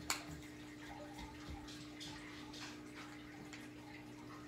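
A single sharp knock just after the start, then faint room tone: a steady hum with scattered small clicks and rustles.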